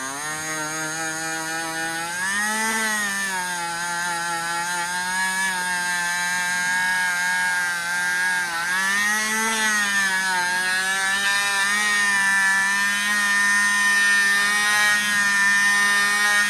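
Dremel rotary tool running with a wool felt buffing wheel pressed against a metal piece, polishing it. The motor's whine rises and falls in pitch twice, about two and nine seconds in, then holds steady.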